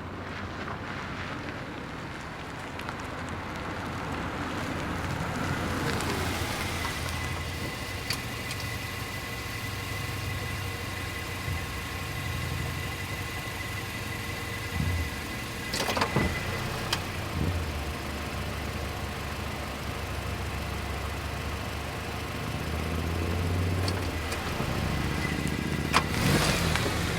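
Car engine and tyre noise as vehicles drive by, swelling gently and easing off. There are a few sharp clicks about halfway through and near the end.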